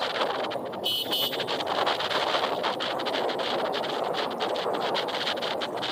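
Wind buffeting the microphone of a moving vehicle on a road: a steady rushing noise with the vehicle's running noise beneath it. A short high tone sounds about a second in.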